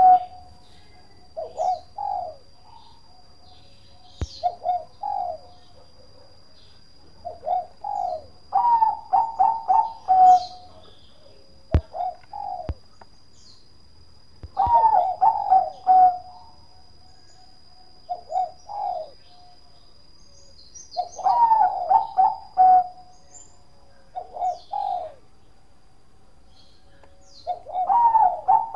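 Bangkok-type zebra dove (perkutut) singing: phrases of quick staccato coos that end in a longer drawn note, repeated every few seconds. Small birds chirp faintly in the background over a faint steady high tone.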